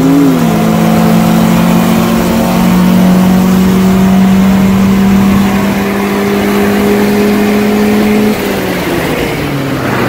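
Car engine pulling hard under full throttle, heard from inside a car's cabin during a roll race, its note climbing slowly and steadily for about eight seconds. Near the end the pitch falls and the sound gets quieter as the throttle is lifted.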